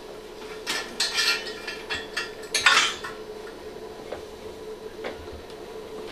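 Clinking and clattering of hard objects being handled, a quick run of rattles lasting about two seconds, then a few lone ticks, over a steady hum.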